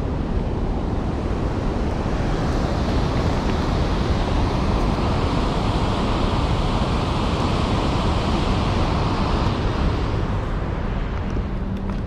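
Steady roar of a waterfall's white water with a low rumble underneath; the hiss grows louder a few seconds in and eases again near the end.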